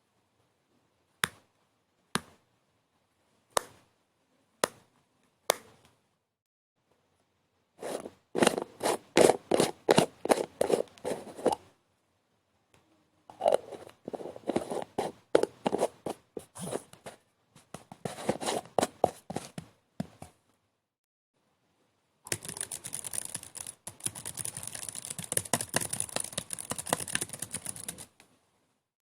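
A handful of sharp clicks, then three bursts of rapid scratching and scraping strokes, the last one denser and hissier.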